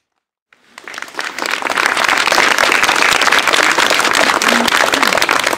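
An audience applauding: clapping breaks in about half a second in, swells quickly and then holds steady and loud.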